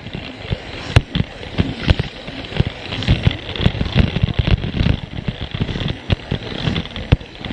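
Plarail toy train running over plastic track, rattling with a stream of irregular clicks and knocks as its wheels cross the track joints.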